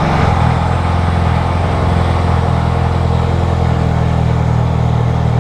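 2015 Hyundai Veloster's 1.6-litre four-cylinder engine running at a steady idle on its first start after a fuel-line install.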